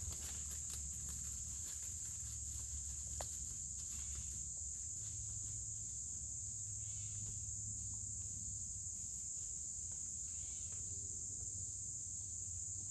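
Steady, high-pitched chorus of insects, with a faint low rumble underneath.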